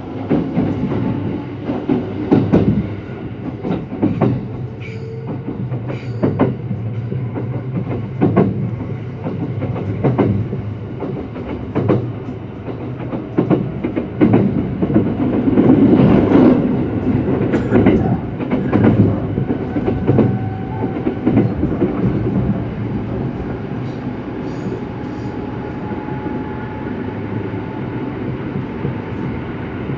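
JR West local train running, heard from inside the carriage: a steady low rumble with the wheels clacking over rail joints and points at uneven intervals, loudest around the middle.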